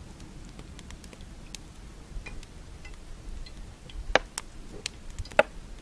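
Fish frying in oil in a pan over a wood fire: scattered sharp crackles and pops, with a few louder ones about four to five and a half seconds in.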